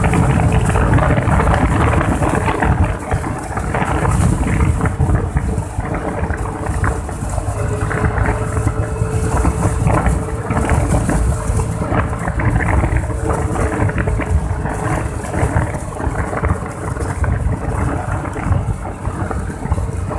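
Wind buffeting the microphone of a riding Yamaha Mio Sporty scooter, with the steady hum of its small single-cylinder automatic engine running at cruising speed underneath.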